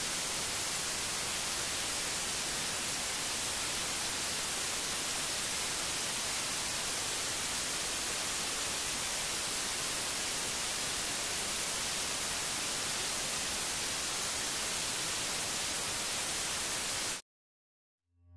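Steady hiss of static noise, even and strongest in the highs, that cuts off abruptly near the end into a moment of dead silence.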